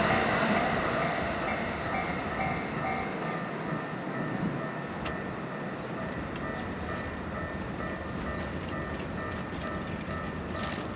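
A passing electric train fades away over the first few seconds, leaving a rail hum. The level crossing's electronic warning bells keep ringing throughout as a repeating, pulsing chime.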